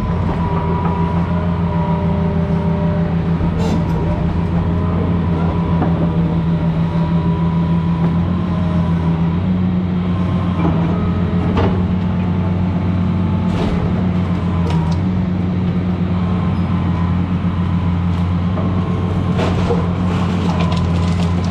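Diesel engine of a 200-class excavator running steadily under load, with a whine from its hydraulics and scattered sharp knocks and cracks from demolition debris.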